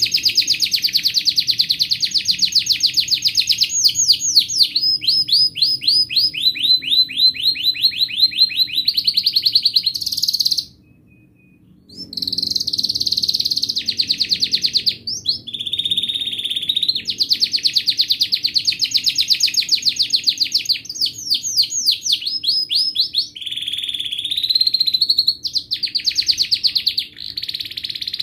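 Domestic canary singing a long, continuous song of fast trills and rapid repeated notes, switching from one rolling phrase to the next every few seconds. The song breaks off for about a second around eleven seconds in, then carries on.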